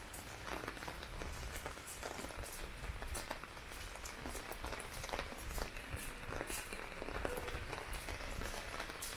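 Heavy rain falling, an even hiss broken by frequent sharp drop taps.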